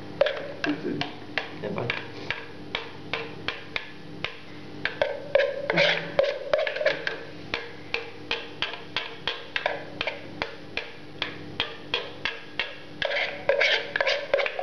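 A kitchen utensil knocking steadily against a bowl or pan, about three sharp clicks a second.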